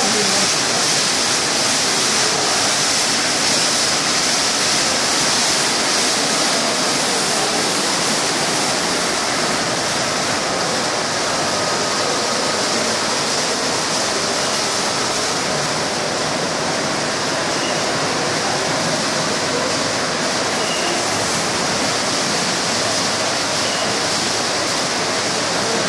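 Tunnel car wash machine spraying water, a loud, steady hiss of rushing water that does not let up.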